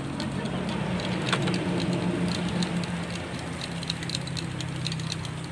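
A steady low engine hum, typical of traffic on a nearby road, under a haze of noise, with scattered light clicks and taps as plastic cups and bottle caps are handled and coloured water is poured between them.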